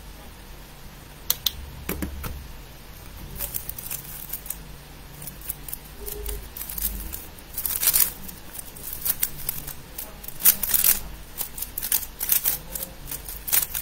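A 3x3 speedcube being turned rapidly by hand during a timed solve: a stream of sharp plastic clicks and clacks as the layers snap around. They come only now and then at first, then thicken into fast bursts in the second half.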